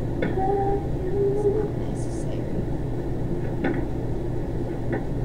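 Faint singing from a music video played back through computer speakers, a few drawn-out notes over a steady low hum, with a brief hiss about two seconds in.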